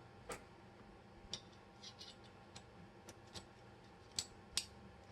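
Small steel parts of a 1911 pistol clicking against each other and the frame as the sear and hammer are refitted by hand: a scattered series of about eight faint, sharp clicks.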